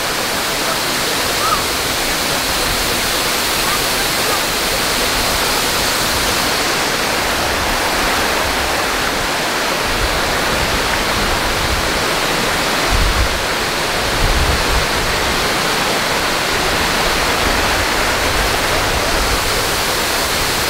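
A waterfall pouring down a rock face onto the boulders below, making a steady, loud rushing noise. A few brief low rumbles come in around the middle.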